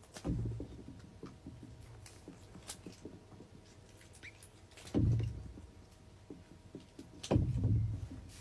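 Small fidget toys being handled: scattered light clicks and scratching, with louder handling bumps just after the start, about five seconds in and near the end.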